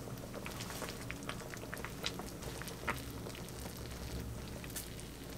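Kimchi stew simmering in a ceramic pot, bubbling with small irregular pops.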